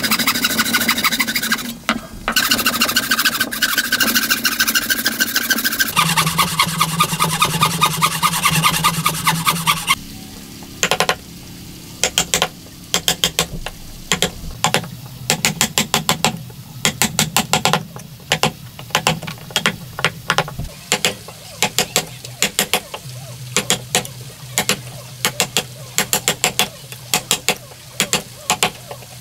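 Wooden frame saw cutting through a squared timber: a fast, continuous rasp of back-and-forth strokes. About ten seconds in it gives way to a chisel being struck into the wood to chop out a joint: a run of sharp knocks, roughly one to two a second.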